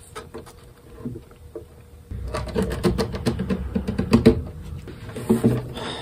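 Sandpaper strip pulled through the joint between a guitar's neck heel and body, scratchy rubbing strokes with a low knock through the hollow body, starting about two seconds in and going for about two seconds, then a shorter scrape and a handling bump near the end. It is sanding the heel of a 1951 Kay K10 acoustic to reset the neck angle.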